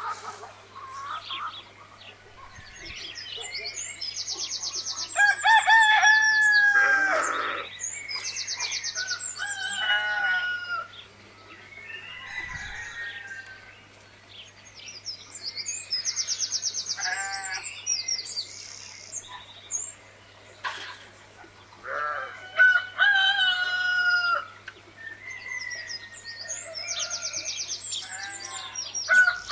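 Rooster crowing several times, with hens clucking and small birds chirping, in a farmyard sound loop that repeats about every 11 seconds over a faint steady low hum.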